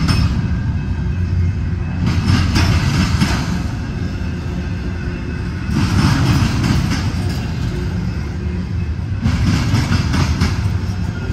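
Double-stack intermodal freight cars rolling past on steel rails: a steady low rumble of wheels on track, with louder rattling bursts about every three to four seconds.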